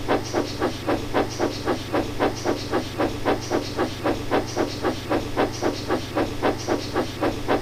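Steam locomotive chuffing steadily at about four puffs a second, over a steady low hum.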